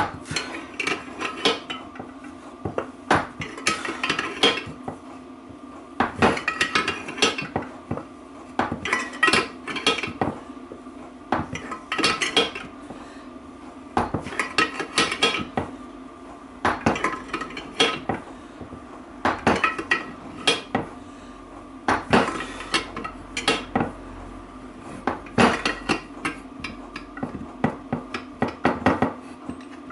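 Metal hand tool clicking and clinking in short bursts every second or two, turned in repeated strokes to draw a bearing home in a Land Rover Freelander 2 rear differential casing.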